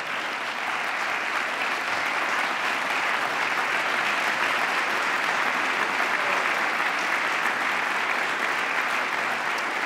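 Large audience applauding: a steady round of clapping that eases off slightly near the end.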